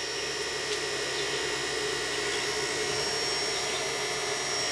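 A steady machine hum with thin, faint high whining tones over it, unchanging throughout.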